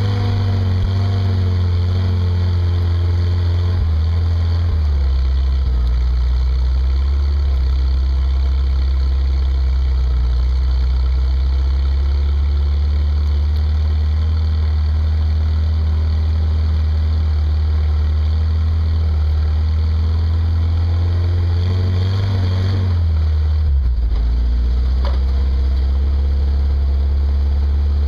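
Jeep CJ-5 engine running at low, steady revs as the Jeep crawls off-road in low range, two-wheel drive. Its note steps down about four seconds in and again late on.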